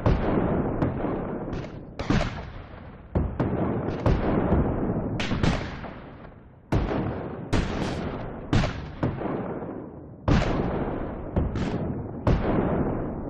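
Sound-effect gunshots or cannon-like blasts fired one after another, roughly one a second at uneven spacing, each sharp crack trailing off in a long echoing decay.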